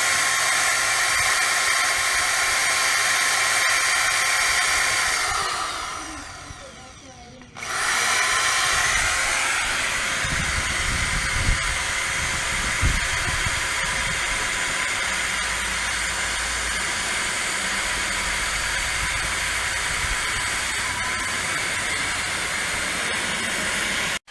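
Steady whir of a small electric motor running continuously, dropping away briefly and then coming back in abruptly.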